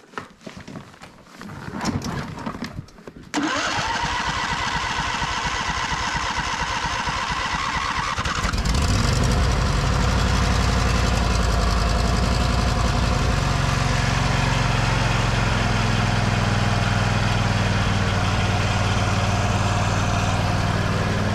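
John Deere LA140 riding mower's V-twin engine starting from cold: the electric starter cranks with a rising whine for about five seconds before the engine catches, and then the engine runs steadily.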